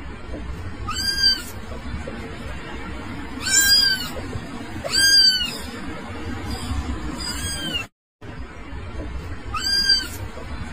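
A kitten meowing again and again: short, high meows that rise and fall, about every two seconds. The sound cuts out for a moment about eight seconds in.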